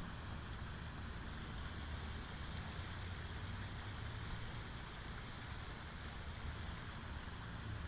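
Steady outdoor background noise: a low, fluctuating rumble under an even hiss, with no distinct events.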